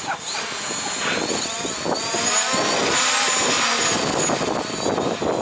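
DJI Mavic Pro quadcopter's propellers buzzing with a high, slightly wavering whine as it hovers within arm's reach and is caught by hand.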